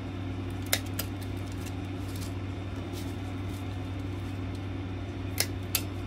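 Hand-held plier-style hole punch clicking as it is squeezed through ribbon: two short clicks about a second in and two more near the end, over a steady low hum.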